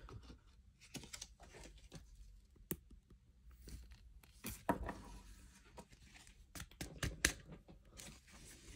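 2009-10 Upper Deck SP Authentic hockey cards being handled and sorted: quiet rustles and crinkles with scattered crisp ticks.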